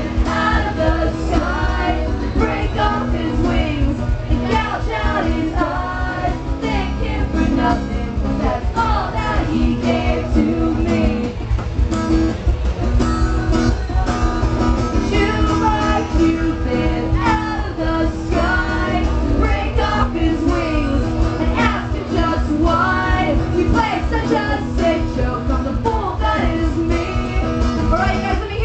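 Live rock band playing loudly: a singer's voice over amplified guitars and a steady drum beat, heard as a concert recording.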